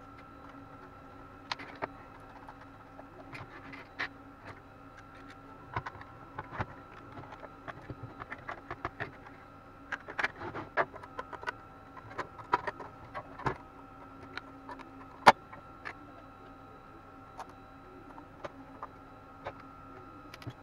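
Irregular clicks and knocks of hands handling small plastic cooling fans and the sheet-metal cover of a power-supply unit, with one sharp knock louder than the rest a little past the middle, over a steady faint hum.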